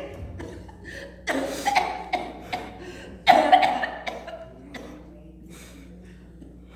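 A woman coughing and gasping in distress close into her microphone: two loud choked outbursts about two seconds apart, then quieter breathing that fades.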